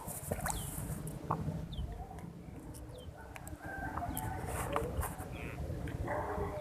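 Chickens clucking, with short bird chirps in between.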